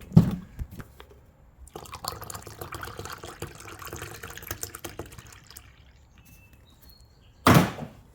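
A beer opened with a sharp crack, then liquid pouring and fizzing with small clicks for a few seconds. A short loud gust of noise comes near the end.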